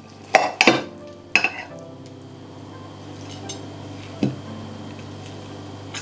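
Steel knife and fork clinking on a ceramic plate while slicing roast leg of lamb: three sharp clinks in the first second and a half, then quieter cutting, with another clink about four seconds in.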